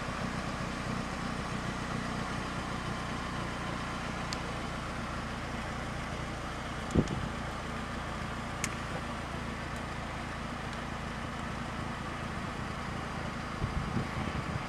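Steady low hum of a car engine idling, heard from inside the cabin, with a single light tap about seven seconds in.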